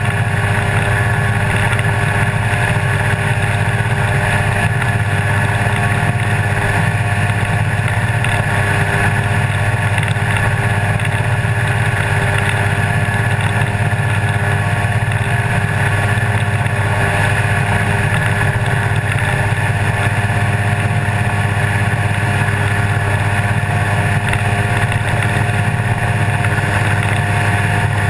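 Hy-Tek Hurricane 103 ultralight's engine and pusher propeller running steadily in flight: an even, unchanging drone heard from a wing-mounted camera, with air rushing past the microphone.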